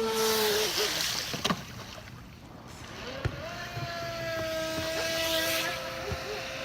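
Radio-controlled boats' electric motors whining at speed over the hiss of water spray. The whine shifts in pitch with the throttle and glides up near the middle. There are a couple of short clicks.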